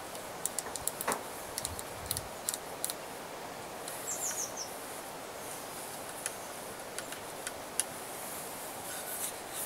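Scattered small clicks and taps from an MX-80 pistol crossbow being handled and worked, over a steady outdoor hiss. A bird sings a short run of falling high chirps about four seconds in.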